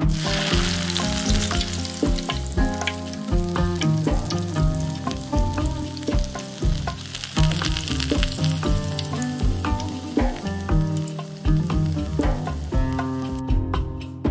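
Apricots and sugar syrup boiling hard in a wide steel pan: a steady bubbling hiss that stops about a second before the end. Plucked-string background music plays underneath.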